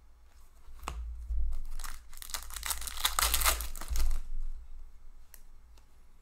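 Foil wrapper of a hockey trading-card pack being torn open and crinkled by hand, a dense crackle lasting about two seconds near the middle.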